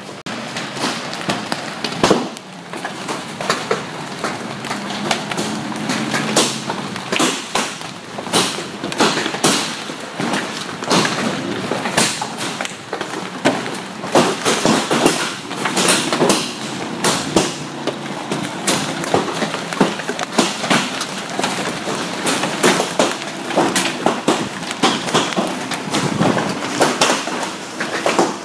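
Large hailstones hitting the building and the ground in a continuous, irregular clatter of sharp cracks and thuds over a steady hiss.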